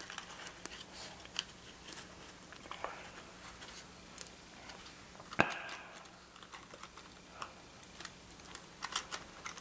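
Faint scattered clicks and light rustles of a cardstock card box and its paper embellishments being handled on a table, with one sharper tap about five and a half seconds in.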